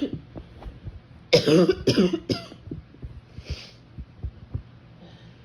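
A woman's barking chest cough: three loud, rough coughs in quick succession about a second and a half in, brought on by a ragweed allergy fit. A short sniff follows, then a few soft bumps from the phone shifting in the bedcovers.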